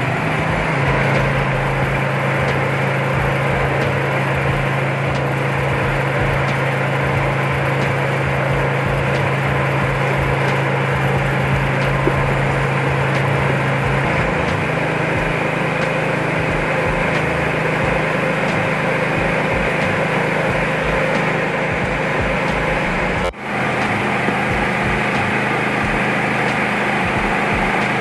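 Mini multi-function rice huller driven by a 9-horsepower engine, running steadily under load as it husks paddy into rice. The engine's steady hum is mixed with the rush and rattle of grain through the mill. The engine note shifts slightly about halfway, and the sound drops out for an instant near the end.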